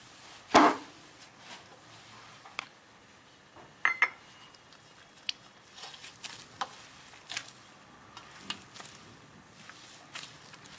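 Hands kneading soaked sabudana and potato mixture in a stainless steel plate: soft handling noise with scattered knocks and clinks on the metal plate, the loudest about half a second in and a ringing pair about four seconds in.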